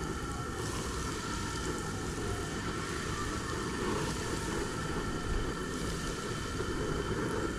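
Breaded crappie fillets sizzling and bubbling as they are dropped into hot oil in an outdoor fryer pot, over the steady rush of the propane burner beneath it.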